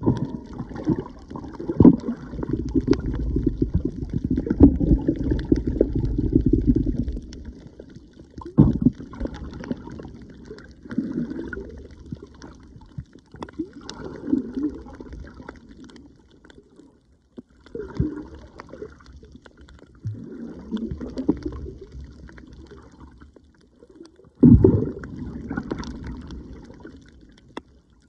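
Water gurgling and sloshing, heard muffled through a microphone held underwater, coming in uneven surges with a few sudden swells.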